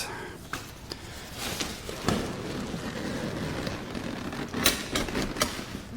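A collapsible lantern softbox being handled and opened out: its fabric rustles steadily, with several clicks and knocks from its wire frame.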